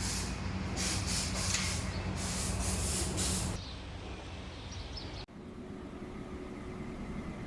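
Workshop machine noise: a steady low hum with hissing, dropping to a quieter steady noise about three and a half seconds in.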